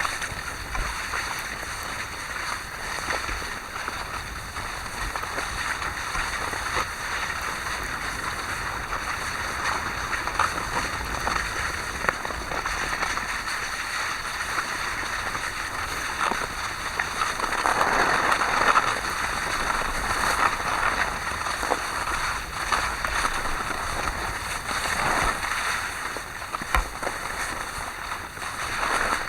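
Steady rushing noise of skiing downhill: wind on the microphone and skis sliding over snow, swelling louder about two-thirds of the way through and again briefly near the end.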